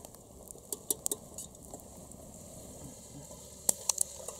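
Potatoes, zucchini, mushrooms and onions frying in oil in a pot over a wood fire: a faint sizzle with scattered sharp clicks, a few louder ones near the end.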